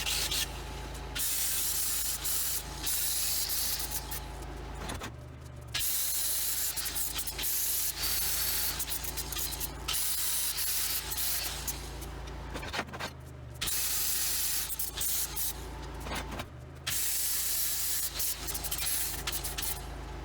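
Welding in a series of bursts a few seconds long, each a crackling, sizzling hiss with short pauses between, over a steady low electrical hum.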